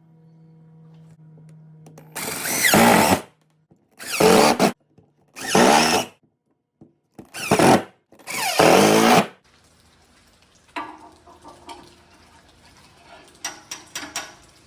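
Power drill run in five short bursts, each winding up and then down in pitch, followed by light clicks and handling sounds.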